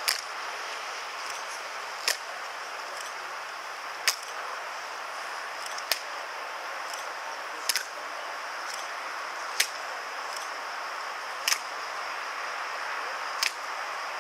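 Evzone guards' hobnailed tsarouchia shoes striking stone paving in a slow ceremonial march: a sharp clack about every two seconds, eight in all, several doubled as the two guards land a moment apart. A steady hiss runs underneath.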